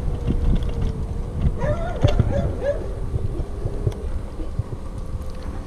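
Hover1 Edge electric scooter's hub motor whining at a steady pitch while riding, over wind and tyre rumble. Brief bark-like calls come about two seconds in.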